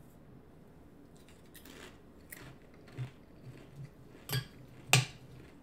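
Crisp crunching of a tortilla chip being bitten and chewed: a string of short, sharp crackles with a few pauses, the loudest two near the end. A metal spoon clicks against the glass bowl of pico de gallo.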